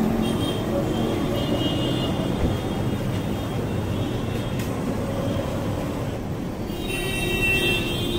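Steady road traffic noise from a busy city street, with high thin tones for the first two seconds or so and again near the end.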